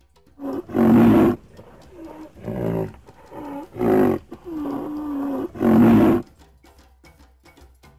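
A rhinoceros calling several times: three loud, breathy calls about a second, four and six seconds in, with whining, higher-pitched calls between them, the longest lasting about a second. The calls stop shortly after six seconds.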